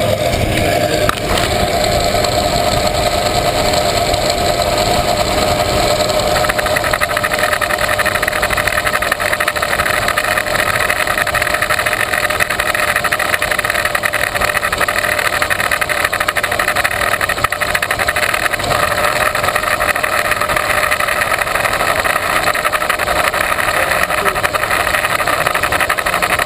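A truck engine idling steadily, heard close up from inside the engine bay.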